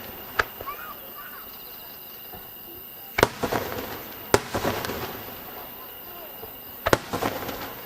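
Aerial fireworks shells bursting: a small sharp bang about half a second in, then three loud bangs later on, each followed by a tail of crackling.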